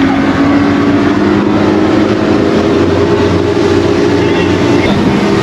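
Speedboat engine running at speed with a steady drone, over the rush of water and wind along the hull.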